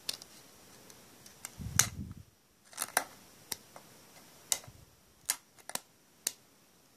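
Metal tweezers prying and picking at the adhesive between a Samsung Galaxy S3's display and its frame. About ten sharp clicks and snaps spread irregularly, with the loudest, a knock with a low thud, about two seconds in.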